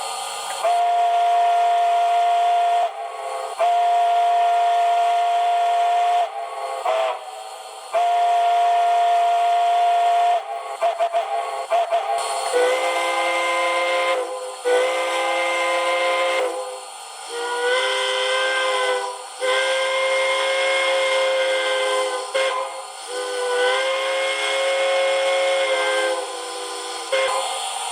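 A TCS WOW Sound decoder playing recorded steam locomotive chime whistles through a model locomotive's small speaker, with no bass. One chime whistle sounds in several long blasts and a few short toots, then about twelve seconds in a different, lower chime whistle takes over in a series of long blasts.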